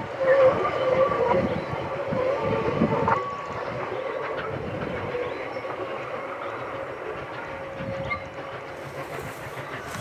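South African Railways class 19D steam locomotive working a passenger train, heard at a distance: a rough rhythm of exhaust beats with a steady tone over them, loudest in the first three seconds, then fading as the train draws away.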